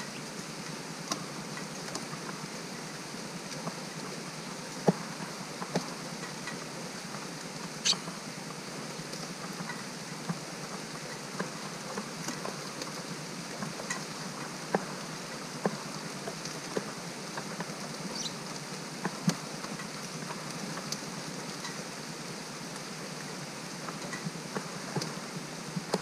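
Steady rain falling, with scattered drops landing as irregular sharp ticks.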